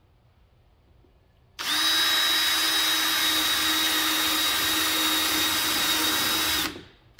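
Cordless drill running at steady speed for about five seconds, drilling a hole into the RV's plastic black water holding tank for a tank probe. It starts about a second and a half in and stops sharply near the end.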